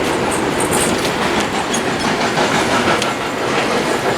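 A train passing at a distance: the steady rumble of rolling rail cars with the light clicking of wheels over rail joints.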